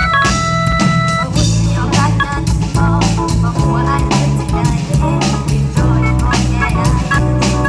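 Ramwong dance band music playing at full volume, with sustained keyboard and guitar notes over a steady drum beat.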